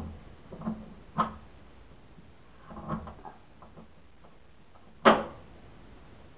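A few light clicks and taps of a thin metal probe worked in a hole bored through a wooden door into a lever lock's case, with one sharp click about five seconds in.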